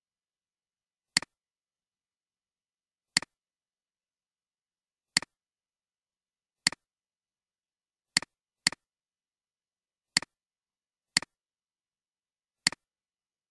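Computer mouse clicks: nine short, sharp clicks, most one to two seconds apart, two of them close together about eight seconds in, with dead silence between.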